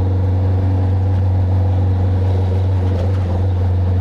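Honda CB650F inline-four engine running at steady, even revs through an Atalla full stainless-steel aftermarket exhaust, a loud, unbroken low exhaust note.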